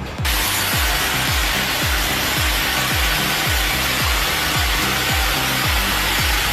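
A power saw cutting through wood with a steady rasping noise that starts abruptly just after the beginning, over background music with a steady beat.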